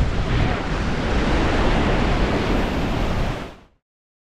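Wind buffeting the microphone over surf washing on the shore, a loud, steady rush with a heavy low rumble. It cuts off abruptly about three and a half seconds in.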